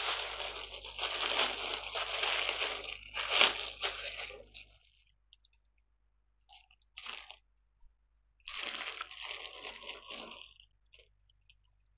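Clear plastic packaging bag crinkling and rustling as it is handled and opened. It crinkles for the first four to five seconds, goes almost quiet with one short rustle in the middle, then crinkles again for about two seconds near the end.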